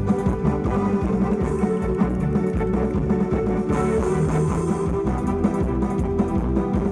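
Music accompanying the carnival dance, playing continuously without a break.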